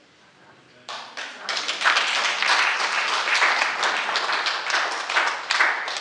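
Audience applauding, a dense patter of many hands clapping that starts about a second in.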